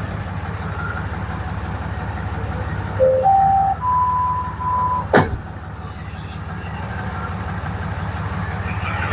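Ram 2500's Cummins 6.7 L inline-six diesel idling steadily. About three seconds in, a short run of electronic beeps steps up in pitch and repeats its top note, then a quick falling sweep follows.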